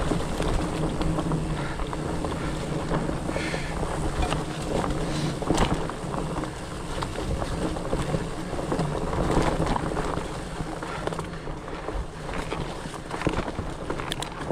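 Wind buffeting the microphone over the rumble and rattle of a Fatback Rhino fatbike rolling along a dirt singletrack trail, with scattered clicks and knocks from the bike over bumps.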